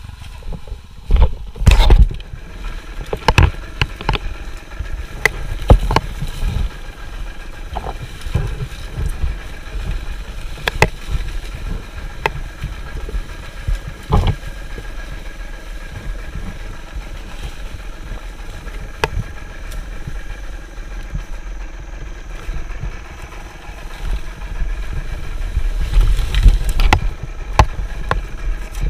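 Dirt bike engine running at low, steady revs on a steep downhill trail, with scattered sharp knocks and clatter from the bike over rough ground. Heavier low rumbling swells come about two seconds in and again near the end.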